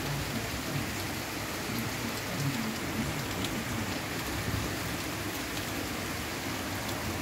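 Steady rain falling, with a few single drops ticking close by.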